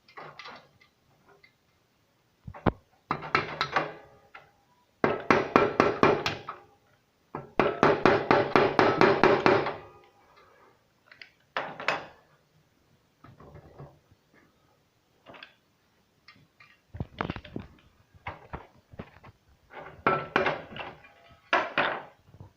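Hammer blows on a nail driving a rivet out of a motorcycle exhaust muffler: several bursts of rapid metallic taps with a ringing tone, the longest about two and a half seconds, between scattered single knocks.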